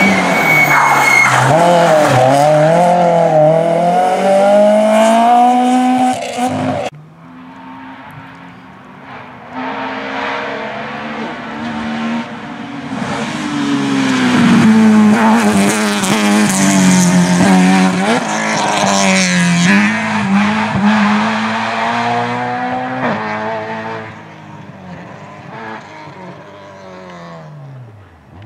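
Rally cars driven hard on a stage: first a Citroën C2 rally car's engine revving up and down through gear changes, cut off suddenly about seven seconds in. Then another rally car's engine rises and falls through its gears as it comes closer and passes, and fades near the end.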